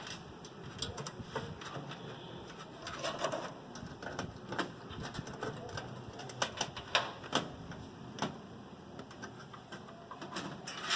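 Irregular light clicks and knocks as a hard disk drive is fitted into a metal PC cabinet.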